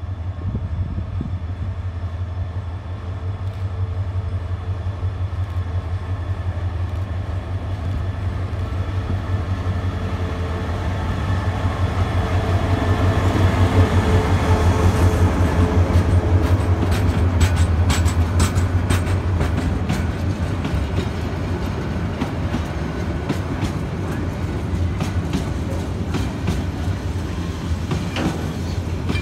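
Diesel locomotive hauling an oil tank-wagon train into a station. Its engine drones deeply as it comes closer and is loudest about halfway through as it passes. The tank wagons then roll by, their wheels clicking over the rail joints.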